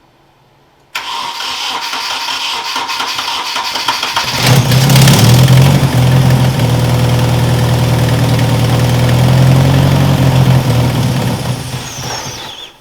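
Nissan KA24DE 2.4-litre inline-four being cranked by the starter for a few seconds, then catching about four seconds in and running with a steady low note before it fades and stops near the end. This is the engine starting after its distributor was rotated by hand to set the ignition timing, which is still not dialled in.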